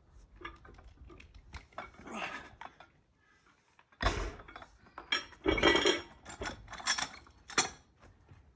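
Metal weight plates loaded on two grip-lift handles clinking and clanking as they are lifted, held and set back down, with a run of sharp metallic knocks that are loudest and most ringing in the second half.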